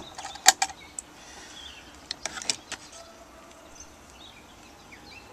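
A few sharp clicks and knocks of something hard being handled, the loudest about half a second in and a small cluster about two and a half seconds in, over a faint hiss.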